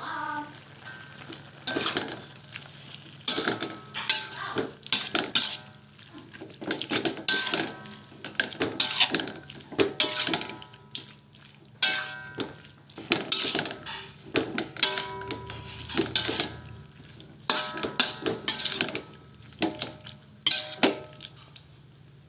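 A metal utensil clanking and scraping against a metal cooking pan while the chicken is stirred. Irregular knocks come in loose clusters, each with a brief metallic ring, over a steady low hum.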